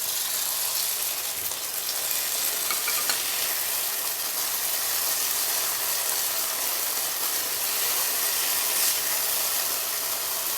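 Chicken 65 gravy sizzling steadily in a pan as cornflour slurry is added to thicken it.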